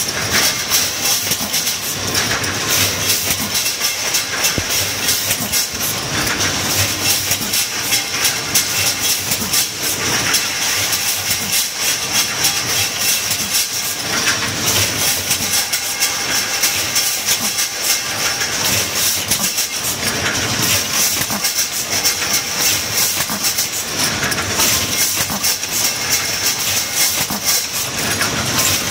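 Automatic metal broom-handle assembly machine running: a dense, steady clatter of metal tubes and mechanisms, with a constant high hiss over it.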